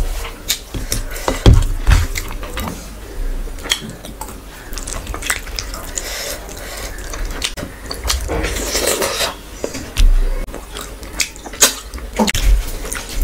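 Close-miked eating sounds: a hand squishing rice into curry gravy on a steel plate, then wet chewing with many small mouth clicks and smacks.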